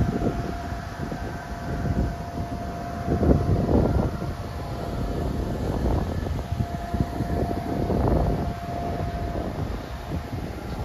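Electric bounce-house blower running: a steady drone with a thin whine that fades in and out, with wind buffeting the microphone in irregular low gusts.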